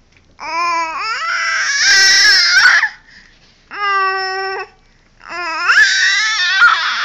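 A baby vocalizing in three long, high-pitched calls: the first about two and a half seconds long, rising and turning rough near its end, then a short steady call, then another long one near the end.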